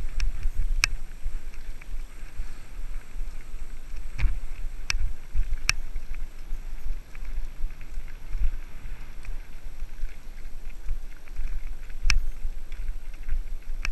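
Mountain bike descending a rough trail: wind buffeting the camera microphone, with sharp clicks and knocks every few seconds as the bike rattles over bumps.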